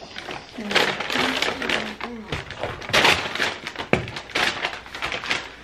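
Paper takeout bag crinkling and rustling as hands dig into it and lift out food boxes, in a run of sharp crackles that are loudest about three and four seconds in.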